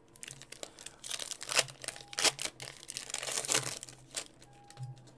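Foil trading-card pack being torn open and its wrapper crinkled, in a run of crackling rustles. The cards inside rustle as they come out.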